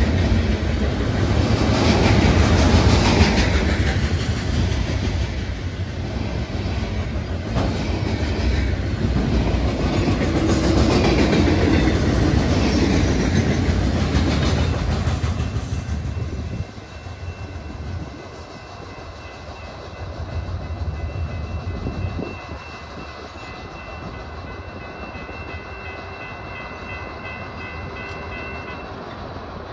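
Freight train of flatcars loaded with military armoured vehicles rolling past a grade crossing, the wheels clacking over rail joints. The noise drops off sharply about halfway through as the end of the train goes by, leaving a fainter rumble with a steady high tone over it.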